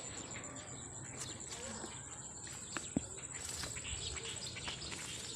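Faint outdoor ambience: a steady high-pitched insect trill, likely crickets, with a few small clicks and light chirps.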